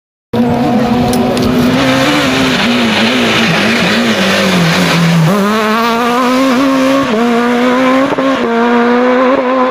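Renault Clio rally car's engine driven hard on a stage. The revs sag as it slows for a bend, then pick up sharply about halfway through as it accelerates away, dipping briefly at each gear change.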